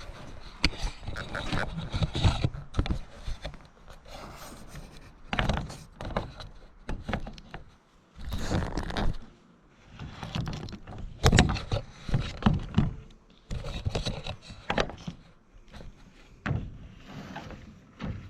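Irregular scraping, knocking and rattling of a corrugated Suntuf polycarbonate roofing panel being handled and laid in place on a porch frame.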